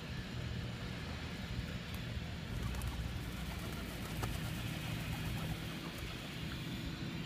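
A steady low engine rumble, with a few sharp clatters of feral pigeons' wings in the middle as birds flap up around the food.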